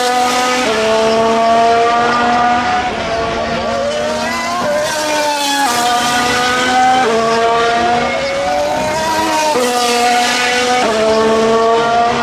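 Race car engines running at high revs on the circuit. The pitch climbs gently and then drops sharply at gear changes, several times over.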